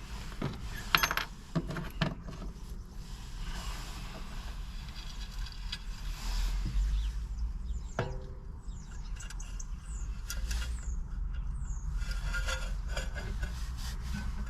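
Small metal glass-retaining clips clinking and scraping against a cast-iron stove door as they are worked into place, with scattered sharp clicks. One louder metallic click about eight seconds in rings briefly.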